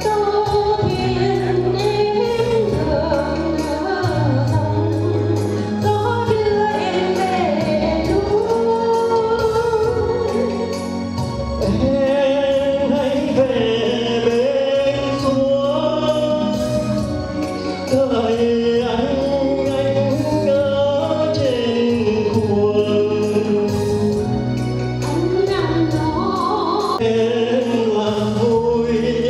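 Music: a song sung over an instrumental accompaniment with a steady beat.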